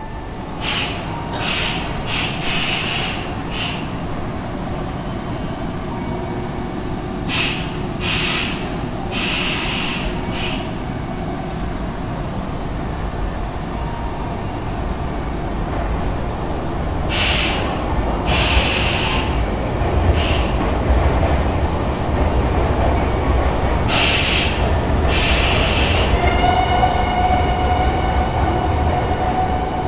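Nankai 6000 series train standing at the platform, heard from inside the car. Groups of short, sharp air hisses come every few seconds. From about halfway a low mechanical running noise from the air compressor grows louder, and near the end a steady hum with several tones sets in.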